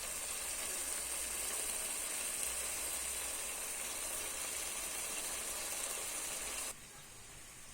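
A steady hiss that cuts off abruptly near the end.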